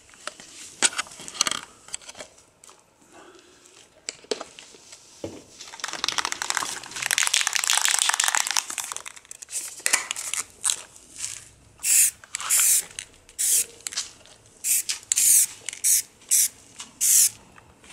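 Aerosol can of spray paint spraying: one longer hiss of several seconds near the middle, then a run of short, sharp bursts of spray over the second half.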